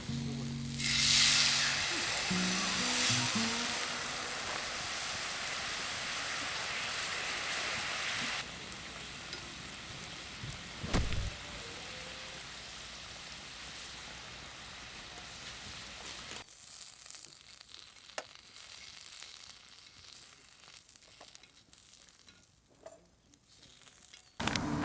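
Shell-on oysters sizzling and hissing on a wood-fired grill over a campfire. The hiss is loudest in the first few seconds and drops off in steps, leaving a quieter fire with scattered crackles in the second half.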